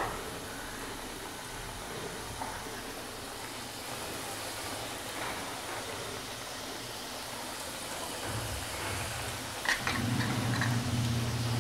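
Coated chicken pieces deep-frying in hot oil in a kadhai, a steady sizzling hiss, with a short splash as a piece goes into the oil at the start. A few sharp clicks and a low hum come in near the end.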